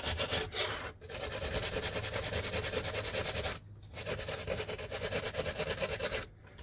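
Steel wire brush scrubbing an old steel spanner on a wooden bench in fast back-and-forth strokes, cleaning the dirt and rust off it. The scrubbing pauses briefly twice and stops near the end.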